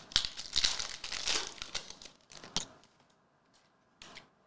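Foil trading-card pack wrapper crinkling and tearing as it is opened by hand, in quick rustling bursts with sharp snaps that stop after about two and a half seconds.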